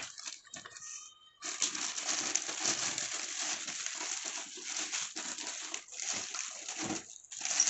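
Clear plastic bag crinkling and rustling as hands pull it off an inverter unit. It starts about a second and a half in and goes on as a busy, irregular crackle with brief pauses.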